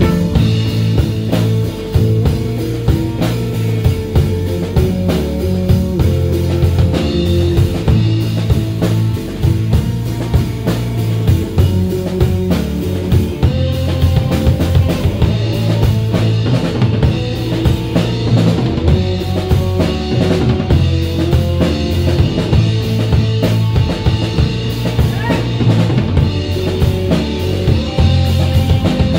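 Live rock band playing: drum kit with snare and bass drum keeping a steady beat under electric bass and a hollow-body electric guitar.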